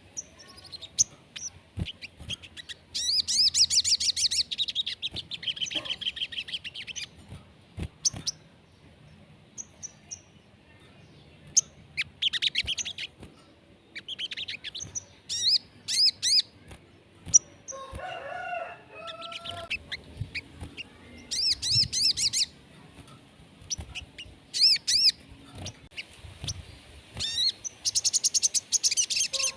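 Sogon, a small sunbird, singing in repeated bursts of very fast, high trills and chirps. A lower, slower call joins about 18 seconds in and again near the end.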